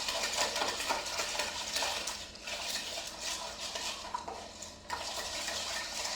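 Spoon stirring a cocktail, clinking and rattling quickly against the container, easing off briefly twice.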